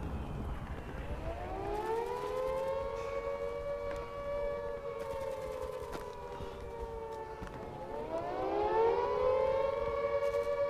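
Air-raid siren wailing: it winds up to a steady pitch, sags briefly about three-quarters of the way through, then winds up again and holds.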